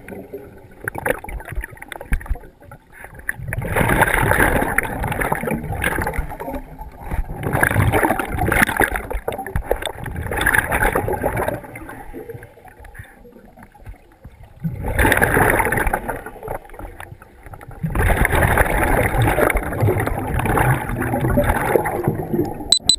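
Scuba diver breathing through a regulator underwater: each exhalation sends out a noisy, gurgling rush of bubbles lasting a second or more, repeating every few seconds with quieter gaps between.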